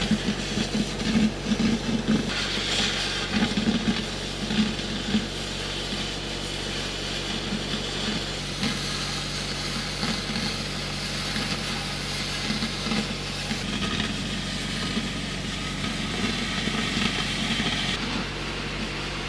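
Stick welding arc crackling and sizzling as a 7014 rod burns, over the steady hum of a Lincoln SAE 300 engine-driven welder running. The crackle is choppier for the first few seconds, then settles into a steadier sizzle.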